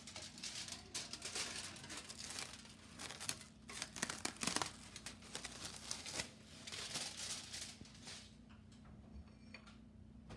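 Plastic wrap crinkling and rustling in irregular bursts as it is handled over a glass bowl of dough. It dies away near the end.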